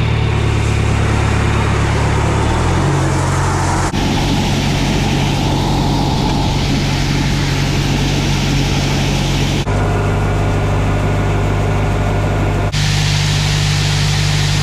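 Heavy vehicle engines running steadily at idle, in several short clips cut together, the engine note changing abruptly at each cut.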